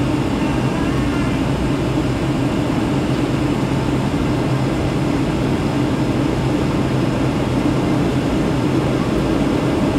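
Steady cabin noise of a Boeing 757-200 in flight, heard from a window seat: the jet engines and rushing airflow make an even roar over a constant low hum.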